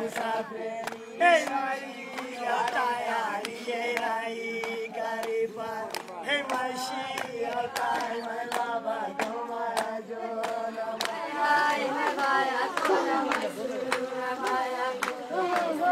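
Group of Kalash villagers singing a traditional festival chant together over a held low note, with handclapping throughout. One brief loud outburst comes about a second in.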